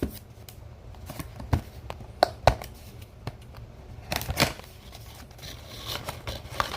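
A cardboard product box and its packaging being opened and handled: scattered clicks and taps mixed with short rustles, the sharpest knocks about two and a half seconds in and a longer rustle around four seconds in.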